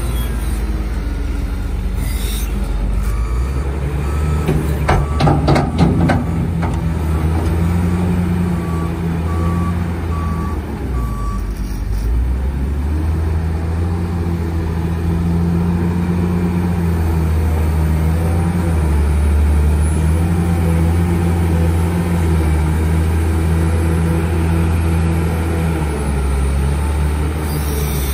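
Komatsu WA250-5 wheel loader's diesel engine running under load, its pitch rising and falling as it digs into and works a sand pile. Its reverse alarm beeps steadily for several seconds while it backs up, and a quick run of knocks comes about five seconds in.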